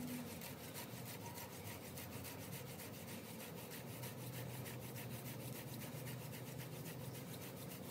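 Horseweed hand-drill spindle spun back and forth between the palms, its tip grinding into a 2x6 wooden fireboard: a rapid, even rhythm of rasping friction strokes.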